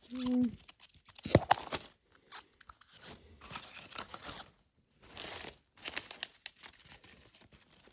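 Small plastic Mini Brands wrappers crinkling and tearing in irregular bursts as a capsule is unwrapped, with a sharp click about a second and a half in.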